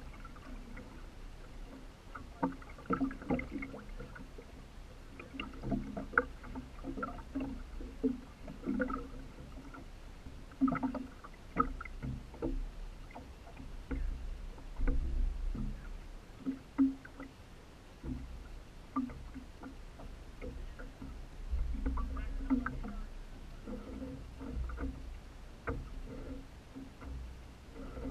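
Water sloshing and splashing against a boat's hull beside its paddle wheel, in irregular small slaps over a low rumble, with no engine running.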